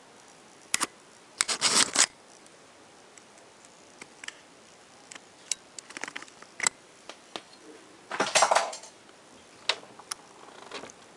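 Handling noise on a handheld camera: scattered sharp clicks and two longer scraping rustles, one about a second and a half in and one about eight seconds in.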